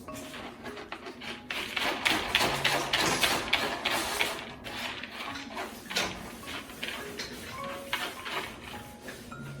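A rapid, irregular run of clicks and rustles, loudest for a few seconds about two seconds in, then thinning out.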